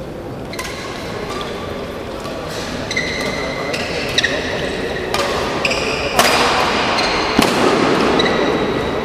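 Badminton rally: rackets striking the shuttlecock in sharp cracks, with court shoes squeaking in short high-pitched chirps between the hits. About six seconds in, a louder rush of noise comes up for a couple of seconds.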